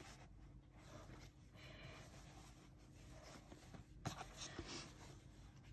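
Faint rustling of cotton quilting fabric being unfolded and handled, with a soft tap about four seconds in.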